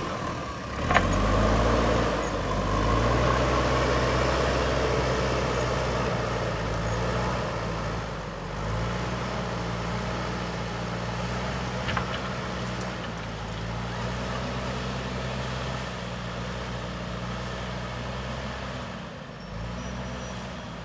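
Backhoe loader's diesel engine running under working load, its revs rising and falling as the machine works. A sharp knock comes about a second in and another about twelve seconds in.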